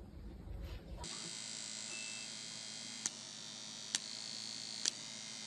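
A low rumbling noise gives way, about a second in, to a steady electrical buzzing hum with hiss. Three sharp clicks come just under a second apart in the second half.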